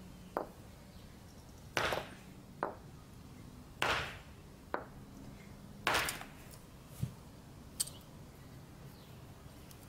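A large stone cobble core struck against another cobble used as an anvil, three heavy stone-on-stone knocks about two seconds apart, with lighter clicks in between. This is Lomekwian-style knapping: the core is hit against another core to knock off sharp flakes.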